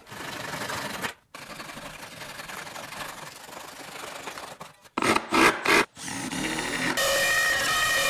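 A flush-cut hand saw rasping through the protruding ends of glued-up finger-joint wood strips in quick, continuous strokes. About five seconds in there are a few short sharp sounds, then a CNC router spindle comes up to speed and runs with a steady whine near the end.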